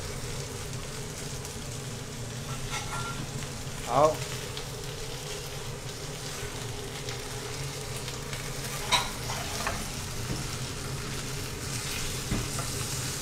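Lotus root slices stuffed with minced pork sizzling steadily as they pan-fry in oil, with a couple of short clicks near the end.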